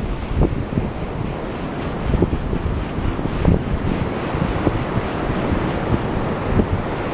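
Wind buffeting and rubbing on the camera's microphone: a steady low rumble broken by many irregular small thumps.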